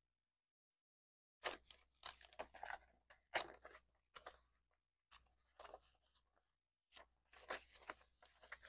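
Paper banknotes rustling and crinkling in short, irregular bursts as a stack of bills is counted by hand, starting about a second and a half in.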